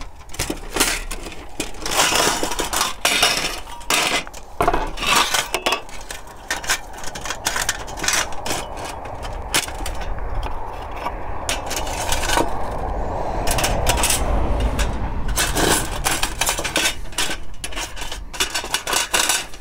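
Thin metal panels of a flat-pack twig stove clinking, clicking and scraping as the stove is unfolded and slotted together. Near the end, its wire pot supports clink into place.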